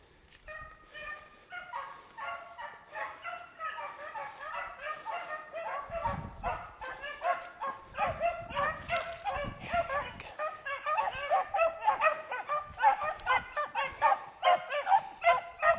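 A pack of beagles baying, many voices overlapping in quick repeated notes, starting about half a second in and growing steadily louder: hounds running a rabbit's scent trail.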